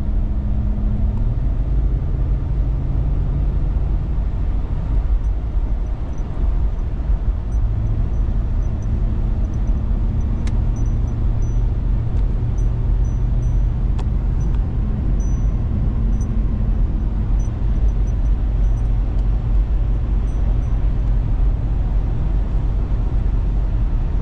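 2024 Ford Super Duty's 7.3 L gas pushrod V8 and its tyres heard inside the cab while driving onto and along the highway: a steady low engine and road rumble. The engine's hum steps in pitch a few times during the first eight seconds. There are two faint clicks in the middle.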